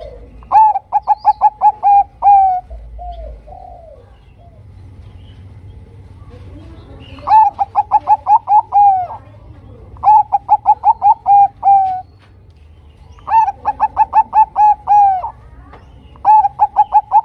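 Zebra dove (Bangkok-bred perkutut) singing. There are five bursts of quick, clipped coos, each a run of about eight to ten rapid notes ending in a longer drawn note. Softer, lower coos fall between the bursts.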